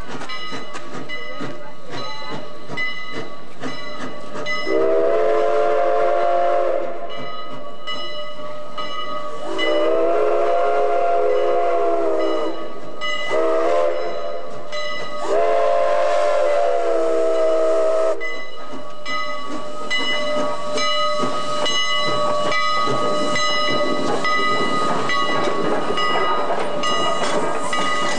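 Chicago & North Western No. 1385, a 4-6-0 steam locomotive, sounds its chime whistle in a long, long, short, long pattern, the grade-crossing signal. Behind the whistle, a bell rings with steady regular strokes and steam hisses. After the last blast the locomotive works off with exhaust chuffs.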